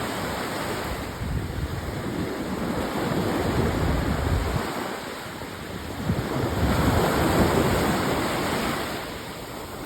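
Sea waves washing onto a beach at high tide, the surf swelling and fading, with some wind on the microphone.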